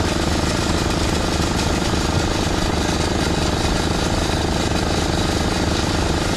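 Small engine running steadily at a fast, even pulse.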